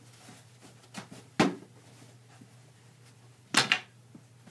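Sharp clacks from hockey sticks and a tennis ball in play: a faint knock about a second in, a sharp clack half a second later, and a louder quick cluster of knocks near the end.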